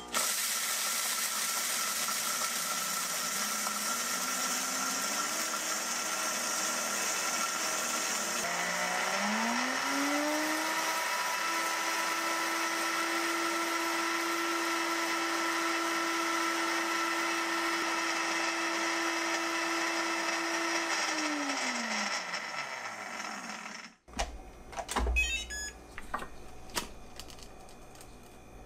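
Kuvings SV500 blender's 1700-watt motor grinding whole coffee beans dry, without vacuum. Its whine climbs in steps as the speed dial is turned up, holds steady for about ten seconds over the hiss of beans being ground, then winds down. A few light knocks follow near the end as the pitcher is lifted off the base.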